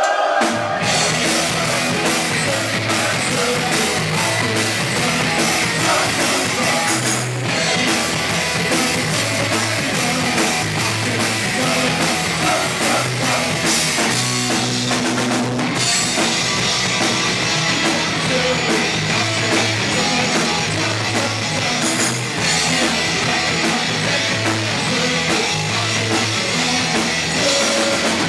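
A punk rock band playing a song on drum kit, electric guitar and bass guitar; the music starts abruptly right at the beginning.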